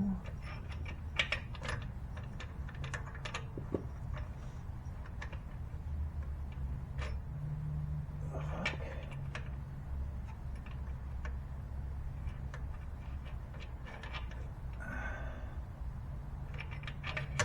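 Scattered light clicks and taps of bolts and hand tools being handled while fitting transmission bell-housing and starter bolts, over a low steady hum.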